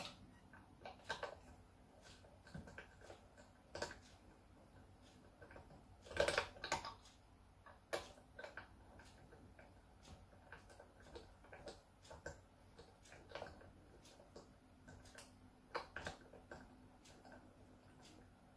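Tuning machines on an Epiphone Les Paul Junior headstock being turned by hand to slacken and unwind the strings: irregular small clicks and ticks from the tuners and loose string ends, with a louder cluster of clicks about six seconds in.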